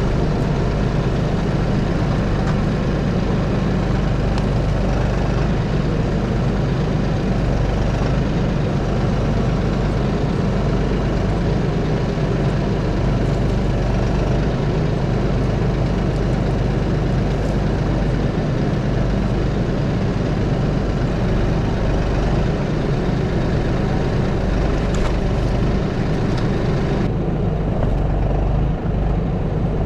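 Tractor engine running steadily while working the grapple to lift and move a cut log.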